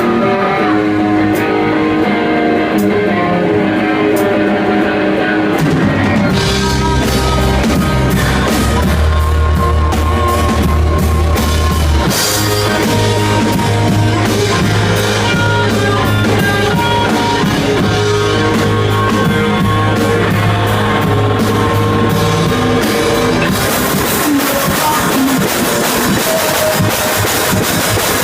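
A rock band playing an instrumental passage. Guitar notes with light, sparse drum taps open it, and bass and a full drum kit come in about six seconds in. Near the end it gets brighter with heavier cymbals.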